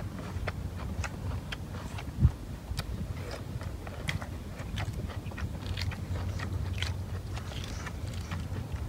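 Close-up eating sounds: biting and chewing, with small clicks and crackles of duck eggshell being peeled by hand. A single thump stands out about two seconds in.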